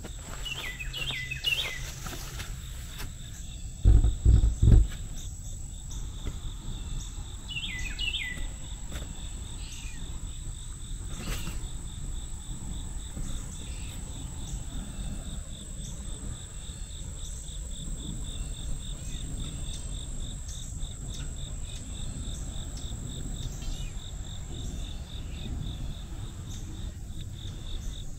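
Crickets and other insects make a steady high buzz and a rapid pulsing trill. A bird gives short falling chirps near the start and again about eight seconds in, and a few loud low thumps come about four seconds in.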